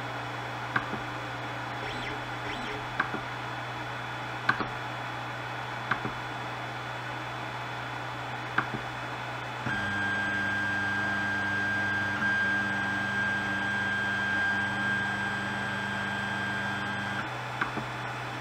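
Ender 3 Pro 3D printer under test: short clicks as its control knob is turned, then from about ten seconds in a stepper motor drives an axis with a steady whine for about seven seconds and stops abruptly. A steady low hum runs underneath.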